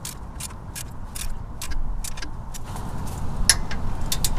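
Ratcheting torque wrench on a 14 mm socket tightening a skid plate bracket nut, each back-swing giving a sharp click, a few per second, with a couple of louder clicks near the end as the nut is brought up to 30 foot-pounds.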